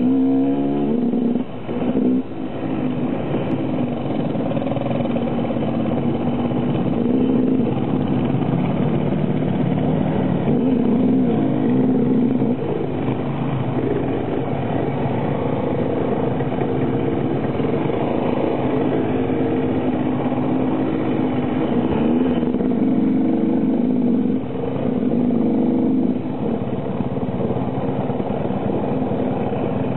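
Enduro motorcycle engine running under load off-road, its revs rising and falling continually, with brief drops as the throttle is rolled off.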